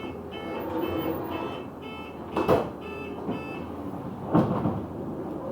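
Bus door warning beeps, about two a second, sounding while the doors close. Two heavy clunks from the door gear come about two and a half and four and a half seconds in, over the bus's running noise.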